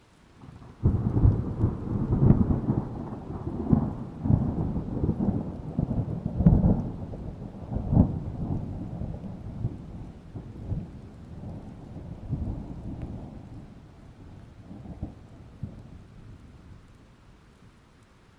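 A thunderclap breaks about a second in, with many sharp cracks over the first several seconds, then rolls on as a low rumble that slowly fades away.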